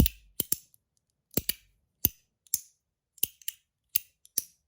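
Stainless steel 01 EDC Pod V2 slider fidget clicking sharply as it is slid back and forth, about two snaps a second, often in quick pairs.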